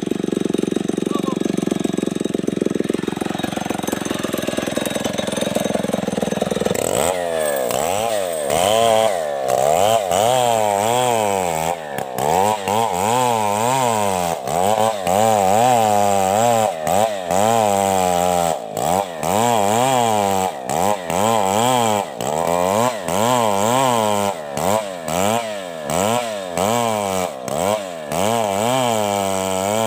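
Two-stroke chainsaw running steadily for about seven seconds, then revving up and down over and over, roughly once a second, as it saws coconut palm wood into lumber.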